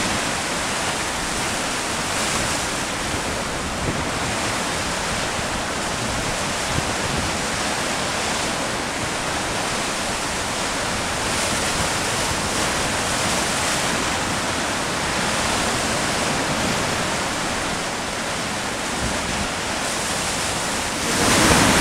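Heavy sea surf breaking and churning against rocks: a steady rush of foaming water with gentle swells in loudness.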